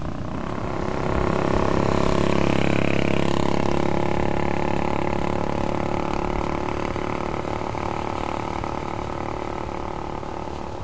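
Small engine of a motorized bicycle running hard as it climbs a hill. It grows louder as it comes past close by about two seconds in, drops in pitch, then slowly fades as the bike rides away.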